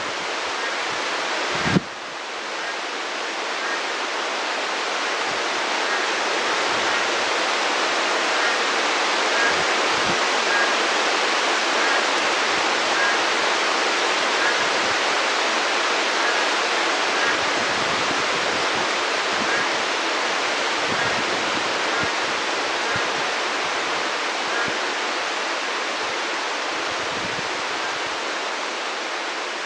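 Heavy monsoon rain falling steadily, a dense even hiss. A sharp click about two seconds in, after which the rain is briefly a little quieter before building back up.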